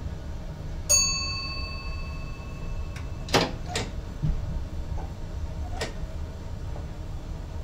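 Driver's cab of an NS ICM Koploper train under way, with a low running rumble throughout. About a second in, a single bell-like chime rings for a couple of seconds, and a few sharp clicks follow.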